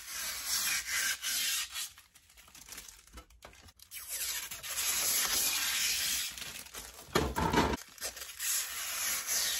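Thin clear plastic sheets and a clear plastic bag being handled by hand, rustling and crinkling in short irregular strokes as a sheet of stickers is slid into the bag. A louder handling bump comes about seven seconds in.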